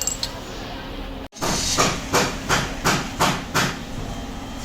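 A run of about six hammer strikes on car body sheet metal, evenly spaced at roughly three a second: panel beating to straighten a damaged body section.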